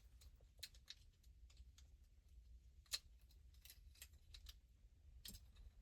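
Near silence with faint, scattered small clicks and ticks, one slightly louder click about three seconds in.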